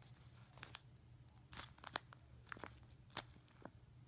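A homemade paper squishy, paper wrapped in tape, crinkling and crackling as it is squeezed and handled, with a few sharper crackles among softer ones at irregular intervals.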